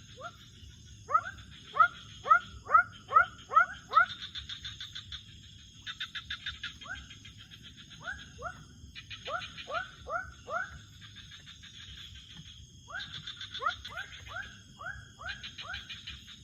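Night-time wild animal chorus: runs of short, sharply rising calls, several in quick succession, pausing and starting again, alternating with fast pulsing trills over a steady high-pitched insect whine.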